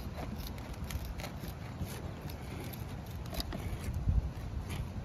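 Tin snips cutting an asphalt shingle: a string of short, irregular snipping clicks over a low rumble, with a thump about four seconds in.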